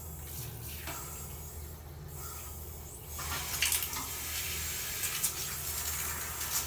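Water running from a handheld shower head, spraying onto a cat's wet fur and a tiled floor. About three seconds in it gets louder and splashier.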